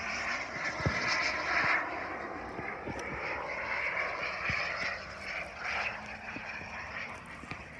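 Kingtech K-260 turbine of a large RC jet in flight, a steady jet rush that is loudest about a second in and then grows fainter as the jet moves away. Wind buffets the microphone in low thumps.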